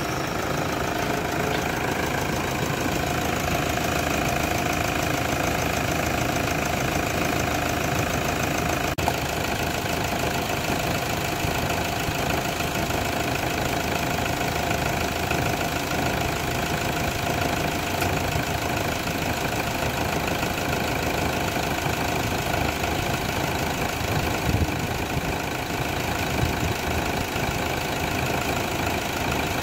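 Toyota Hilux Vigo pickup's engine idling steadily, just after being started, with a steady whine running through it.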